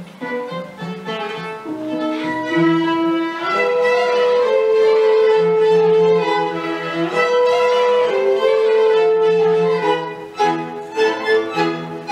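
A small chamber ensemble of bowed strings (violins, viola, cello) with French horn plays long, held melody notes over a pulsing low line. About ten seconds in, it breaks into short, evenly spaced accented chords.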